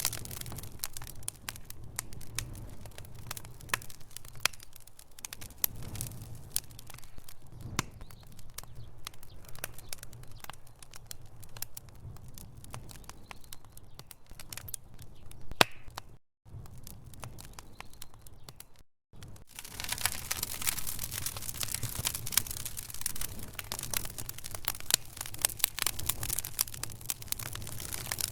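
Wood fire burning in a fireplace, crackling and popping in quick irregular snaps over a low steady rumble. The sound cuts out completely twice for a moment past the middle. After that the crackling is louder and denser.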